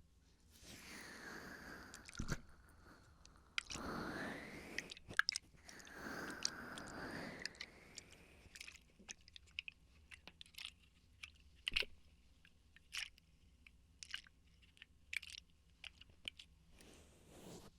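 Water sloshing inside a water bottle in three swells, its pitch sweeping as the water moves. After that comes a run of short crisp clicks and crackles from the bottle being handled close to the microphone.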